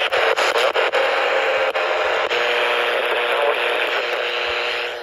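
Static hissing from an ER310 emergency weather radio's speaker, with faint steady tones beneath it. The hiss breaks up several times in the first second and drops away near the end.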